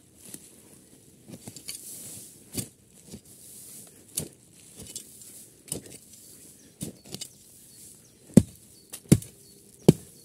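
Folding entrenching shovel digging into forest soil: a series of sharp strikes and scrapes of the blade about once a second, with three louder strikes near the end.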